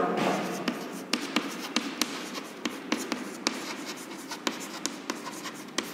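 Chalk writing on a chalkboard: a continuous scratchy rustle broken by frequent, irregular sharp taps as the chalk strikes the board.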